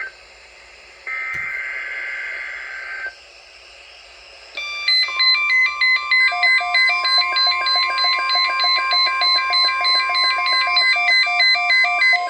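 Emergency Alert System tones: a two-tone SAME header data burst, a harsh electronic screech lasting about two seconds, starts about a second in. From about four and a half seconds the steady attention tone near 1 kHz sounds, with a pulsing alarm of stepped electronic beeps, about two to three a second, laid over it.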